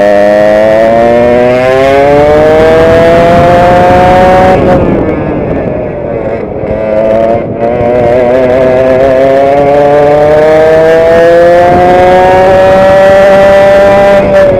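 Small two-stroke direct-drive kart engine at full throttle, heard onboard, its pitch rising steadily as the kart gathers speed. The throttle eases and the note dips about four and a half seconds in and wavers again a couple of seconds later, before a second long climb in pitch that drops off sharply at the very end.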